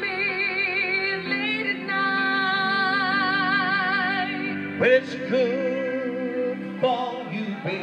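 A woman singing into a microphone over instrumental backing, holding long notes with a wide vibrato.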